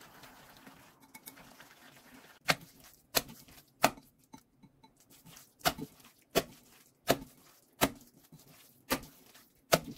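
Minced pork mixed with diced lotus root and onion being slapped by hand in a bowl, working the meat until it turns sticky. After a short stretch of quiet mixing come nine sharp slaps, roughly one every three-quarters of a second, with a brief pause midway.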